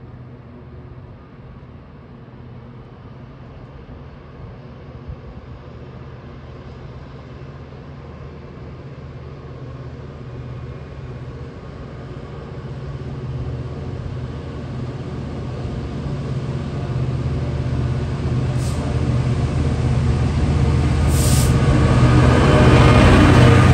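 Class 66 diesel freight locomotive approaching, its EMD two-stroke V12 engine giving a steady low drone that grows louder over about twenty seconds. The drone peaks as the locomotive draws level near the end, with the rattle and rumble of the wagons rising with it.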